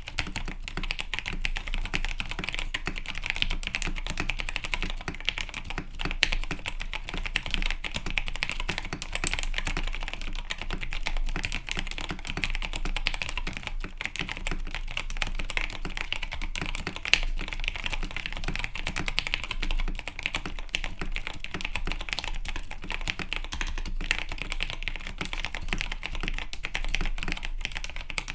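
Tecware Phantom mechanical keyboard, modded with tape, PE foam and O-rings, being typed on fast and without pause: a dense stream of keystrokes.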